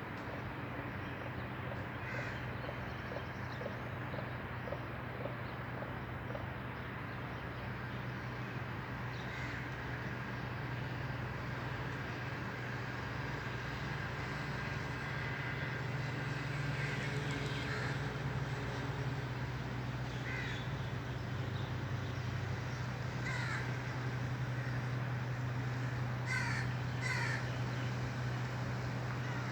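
A crow cawing in short repeated calls, scattered at first and coming in quick pairs and clusters near the end, over a steady low hum.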